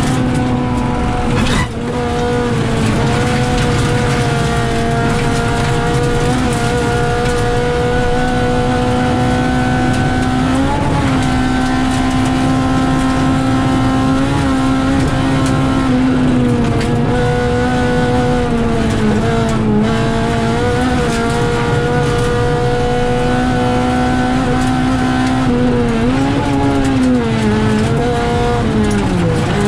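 Rally car engine at high revs, heard from inside the cockpit. It holds a near-steady pitch for long stretches, with a brief dip about two seconds in and the revs wavering up and down near the end. Constant road and gravel noise runs underneath.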